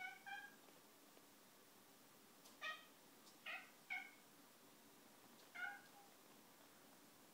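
Domestic cat giving short meows, six in all: two close together at the start, three in quick succession a few seconds in, and one more near the end.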